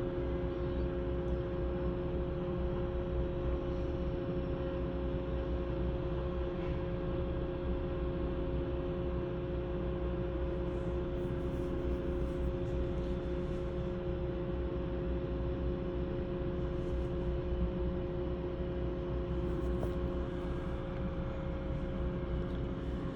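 Drilling rig machinery running: a steady low engine rumble with a constant hum on top, unchanging throughout.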